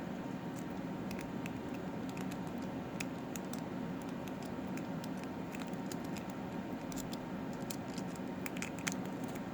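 Lock pick scrubbing back and forth over the pin tumblers of a small padlock under a tension wrench: light, irregular metallic clicks and scratches.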